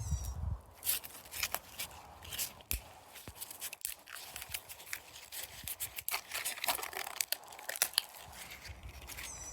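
The wound layers of an AC capacitor being cut and torn apart: irregular crackling, tearing and crunching, the layers melting together under a toothless blade.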